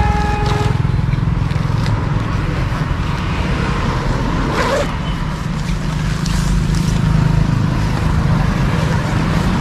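Steady low rumble of road traffic, with a short car horn toot at the very start.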